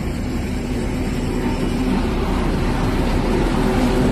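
Steady low rumble of a ship's engines and machinery heard on deck, with a faint constant hum over it.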